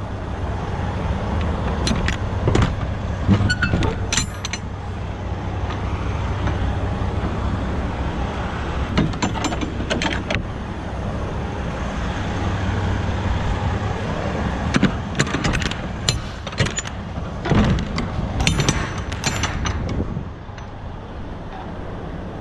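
Semi-truck diesel engine running as the rig moves slowly, heard from beside the open driver's window, with scattered sharp knocks and clatters. The engine sound eases a little near the end.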